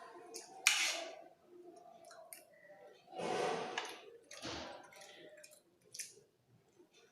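Eating sounds from a plate of fried rice: a small spoon clicking and scraping on the plate, with chewing. There are a few short noisy bursts, the longest about three seconds in.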